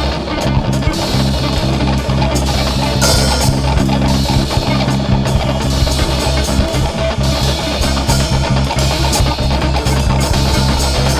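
A band playing its studio recording: guitars, bass guitar and drum kit together at a steady, full level.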